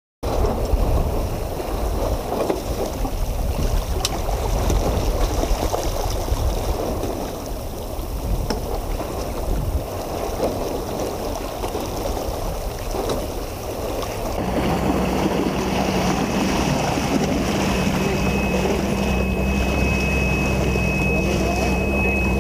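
Wind and water rushing past a small sailboat's hull. About two-thirds of the way through, a nearby motorboat's engine comes in, running steadily, with a thin high whine added near the end.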